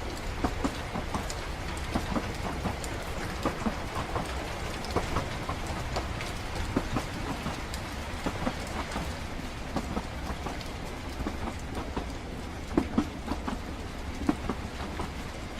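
Train running steadily: a continuous low rumble with dense rattling, pattering clicks over it and a couple of louder knocks about 13 seconds in.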